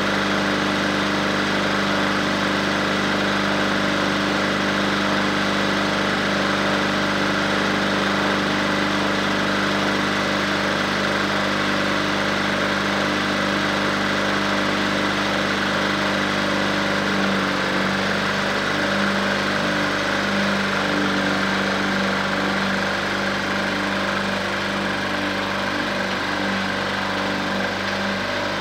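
Crawler bulldozer's diesel engine running steadily, then its note turns uneven and wavering a little past the middle as the dozer moves off.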